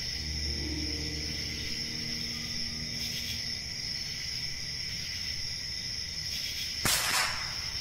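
Night insects, crickets, trilling in a steady continuous chorus. A brief sharp noise cuts in about seven seconds in.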